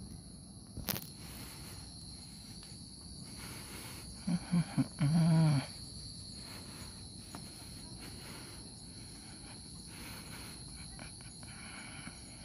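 Insects trilling steadily at two high pitches over faint outdoor noise. There is a single knock about a second in, and a few short, low-pitched voice syllables near the middle.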